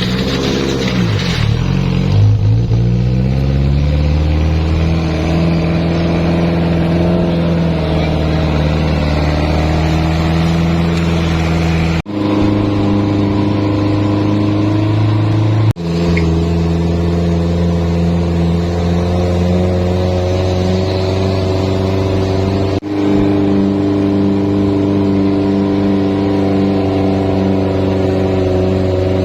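Off-road vehicle engine running under load, its pitch climbing over the first several seconds and then holding steady. The sound breaks off abruptly and resumes about 12, 16 and 23 seconds in.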